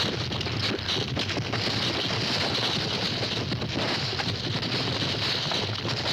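Cattle stampede sound effect: a dense, steady rumble of many hooves pounding the ground at once, with no single beat standing out.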